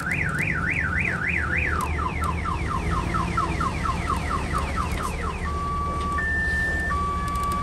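A vehicle's electronic multi-tone siren cycles through its patterns: a rapid up-and-down wail, then fast falling chirps from about two seconds in, then a two-tone hi-lo alternation from about five seconds in. Under it a diesel engine runs with a steady low rumble.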